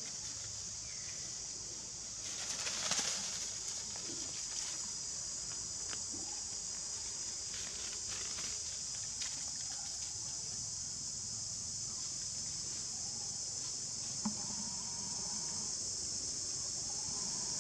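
Steady high-pitched drone of insects, with a burst of leaf and branch rustling about two to three seconds in and a few short clicks.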